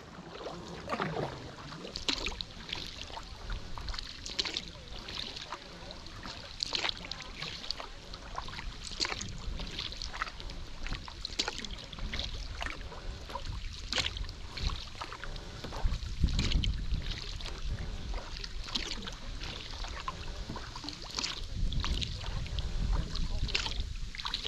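Kayak paddling: the double-bladed paddle dips in at a steady stroke rhythm, with a splash and the trickle of water off the blades every second or two. Low wind rumble on the microphone comes and goes.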